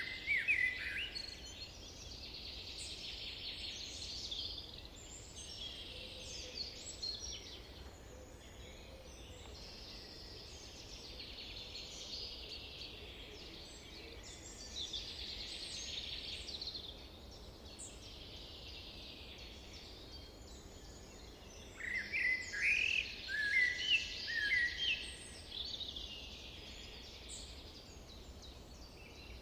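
Several songbirds singing over a steady background of high twittering. A nearer bird sings loud runs of quick chirps near the start and again about three-quarters of the way through.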